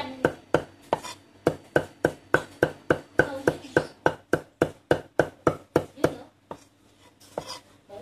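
Cleaver mincing shallots on a thick wooden chopping block: quick, even chops at about four a second, stopping about six seconds in, with a few light knocks after.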